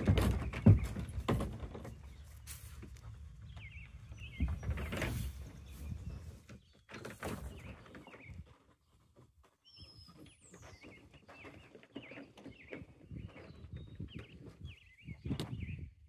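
Heavy thuds and knocks from a large plastic calf hutch being set down and handled, loudest in the first second and again about four to five seconds in, with scattered lighter knocks later. Small birds chirp repeatedly in the background.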